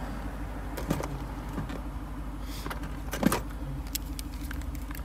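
A few light clicks and knocks from hands picking up and handling a cordless soldering iron, with one louder knock about three seconds in, over a steady low hum.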